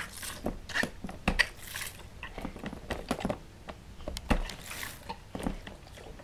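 Hard plastic clicks and knocks as the pump knobs on a BABY Born Interactive Bathtub are pressed, with a few short hisses of water spraying from its toy shower head.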